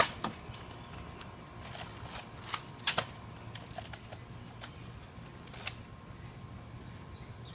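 Nerf blasters clicking and snapping: scattered sharp clicks at irregular intervals, the loudest a quick double snap about three seconds in.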